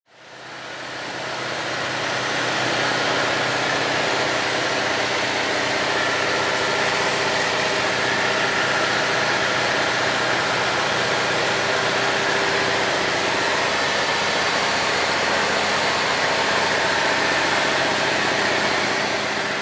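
Peterbilt semi truck's diesel engine running at a steady pitch while driving, heard inside the cab; it fades in at the start and fades out at the end.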